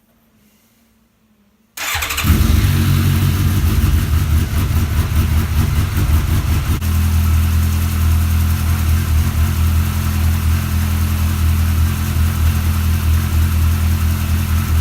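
Suzuki GSR 750 inline-four motorcycle engine running steadily. It comes in abruptly about two seconds in, loud and even.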